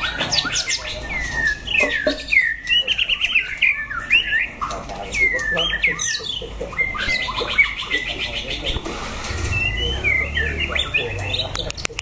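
Caged white-rumped shamas singing against one another: a run of loud, varied whistles and swooping notes, with fast rattling trills near the start and again a little past the middle.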